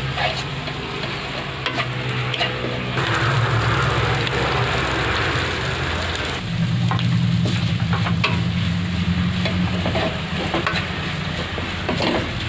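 Kwetiau (flat rice noodles) sizzling as they are stir-fried in a nonstick wok. Occasional sharp clicks come from the wooden spatula knocking and scraping against the pan, and a low steady hum runs underneath.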